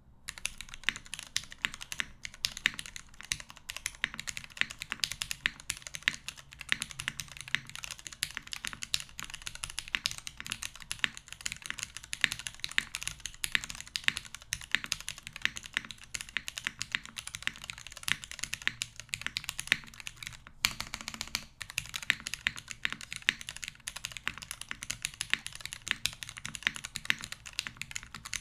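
Typing on a Merisi Ottantaquattro 84-key mechanical keyboard with thinly lubed vintage Cherry MX Black linear switches on a top-mounted aluminum plate, with no foam and GMK keycaps. A steady, dense stream of keystrokes starts about half a second in, with one brief pause about twenty seconds in.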